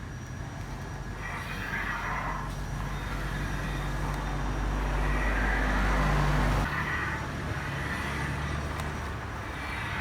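Sliding table saw running with a steady motor hum while cutting wood. The cutting noise swells and fades, grows loudest, then drops off suddenly about six and a half seconds in.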